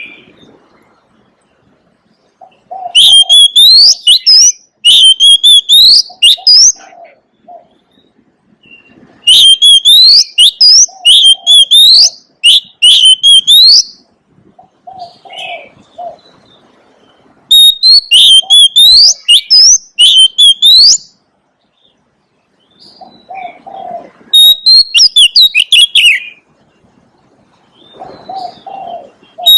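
Oriental magpie-robin singing loud, rapid phrases of high whistled notes with rising sweeps, in four bursts a few seconds apart. Lower cooing notes sound in the pauses.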